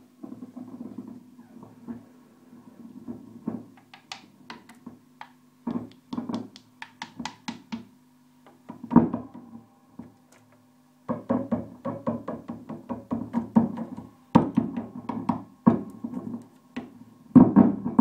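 Fender blackface Super Reverb tube amp: taps on its circuit board and filter capacitors come out of the speakers as quick runs of knocks, each with a ringing tone. This is microphonic feedback, an amp fault that persists after new tubes, sockets and electrolytic caps. The knocks stop briefly a little past halfway.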